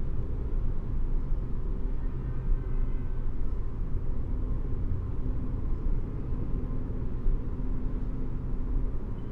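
Room tone of an empty concert hall: a steady low rumble with a faint hum of a few steady tones above it.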